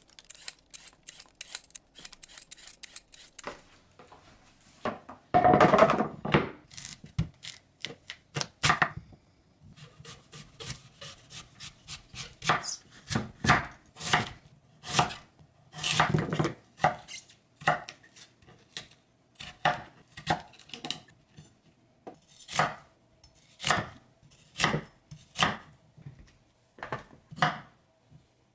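Chef's knife slicing a Korean radish into thick pieces on a wooden cutting board, about one cut a second, each stroke ending in a knock on the board. Before that, a vegetable peeler scrapes lightly, then comes the loudest sound, a crunching knock about five seconds in.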